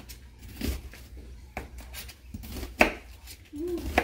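Kitchen knife slicing an onion into slivers on a plastic cutting board: four or five sharp chops, about a second apart, the loudest nearly three seconds in.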